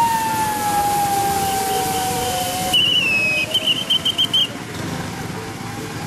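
A woman's long high whoop, held for nearly three seconds and sinking slowly in pitch, as she sets off down a zip line. Then a quick run of short high chirps.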